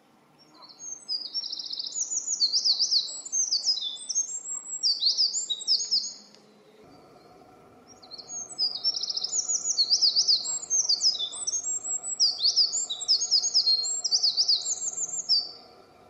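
Eurasian wren singing: two long, rapid songs of high trills and sweeping notes, each about six to seven seconds, with a pause of about a second and a half between them.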